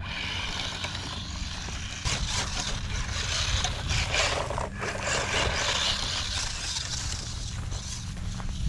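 Traxxas 1/16 Slash RC truck's brushed electric motor and drivetrain running as it drives off, its tyres brushing through dry grass.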